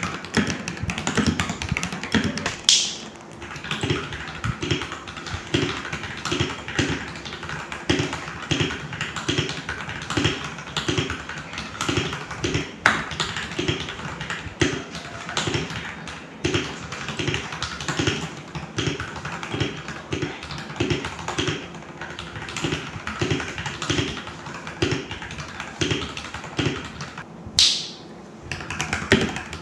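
Continuous typing on a stock FL-Esports FL680SAM mechanical keyboard, mostly on Gateron Brown switches: a steady run of key presses and clacks. There is a short whoosh a few seconds in and another near the end, where the test switches to a different keyboard.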